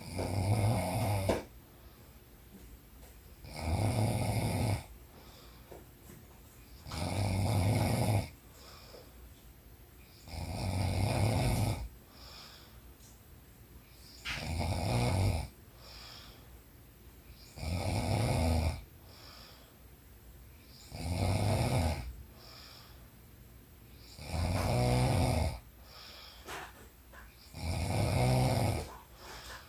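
A woman snoring in her sleep: nine loud snores, one about every three and a half seconds, each lasting a little over a second, with quieter breathing between them.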